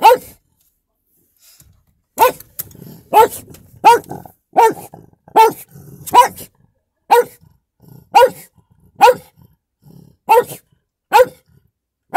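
A dog barking inside a car: about a dozen loud, single barks, roughly one a second, after a pause of about two seconds near the start.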